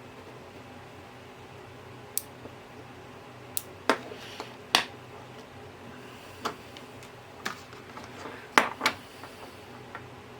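Scattered sharp clicks and taps from handling the small Bluetooth radio and tools on a workbench, about ten of them, the loudest a little before halfway and a pair about five-sixths of the way in, over a faint steady hum.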